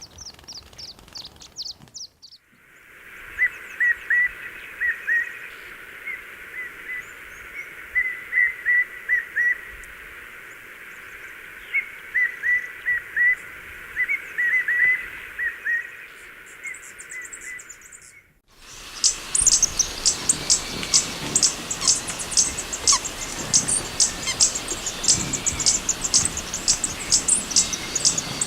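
Wild birds calling, in three cut-together recordings. First come high thin notes. From about two seconds in there is a long run of short, mid-pitched chirps with everything above and below cut away. About eighteen seconds in, a rapid string of very high, sharp chirps takes over.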